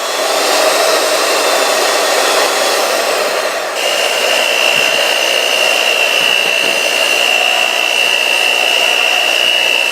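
Electric hand mixer running steadily, beating cake batter in a bowl. About four seconds in, a steady high whine joins the motor noise.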